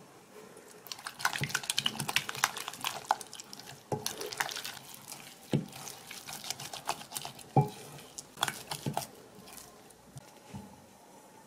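Kitchen handling noises: a busy run of small clicks and taps with a few heavier knocks, thinning out near the end.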